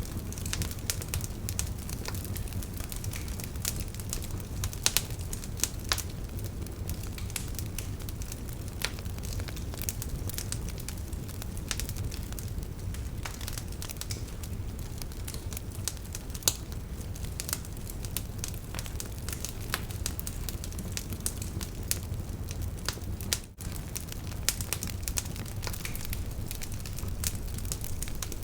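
Campfire burning and crackling: frequent sharp pops and snaps over a steady low rumble of the flames, with a brief drop in level about 23 seconds in.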